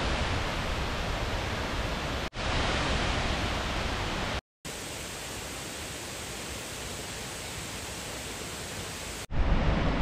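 Steady rushing hiss of the many streams of Shiraito Falls pouring into the pool, in clips cut together with a brief dropout to silence about four and a half seconds in. Near the end it gives way to heavier, gusty wind buffeting the microphone.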